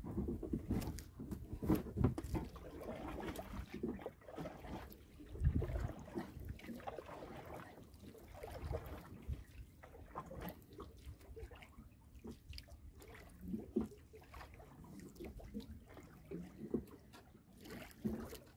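Water lapping and trickling against the hull of a small canoe, with uneven low knocks, the strongest in the first six seconds or so.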